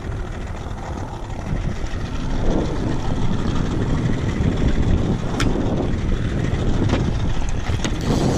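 Outboard motor running steadily at trolling speed, with wind buffeting the microphone. A few sharp clicks are heard in the second half.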